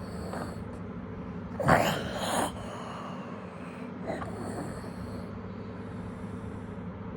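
Snoring: one loud snore about a second and a half in and a fainter one near four seconds, over a steady low hum.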